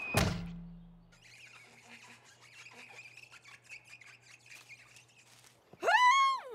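Cartoon sound effects: a sharp thud just after the start as a pony hits a window pane, then a few quiet seconds. Near the end a loud, high voice swoops up and down in pitch.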